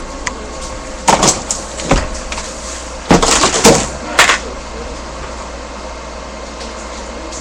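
A few short, loud knocks and rustles, clustered in the first half, over a steady background hum that carries on alone after them.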